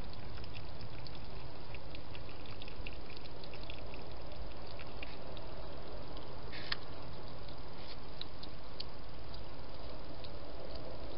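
Hedgehog with its head in a feeding bowl, eating and lapping: many quick small wet clicks, thinning out after about five seconds, with one louder click near the middle, over a steady hiss.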